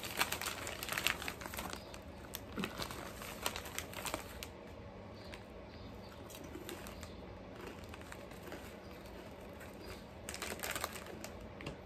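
Ruffles potato-chip bag crinkling as a hand rummages in it, in sharp crackles for the first few seconds and again near the end, with a quieter stretch between.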